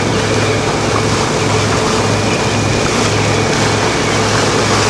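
A motorboat's engine running steadily with a low hum, under a constant rush of water and wind noise.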